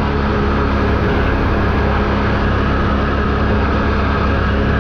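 ATV engine running steadily while riding, its pitch holding even.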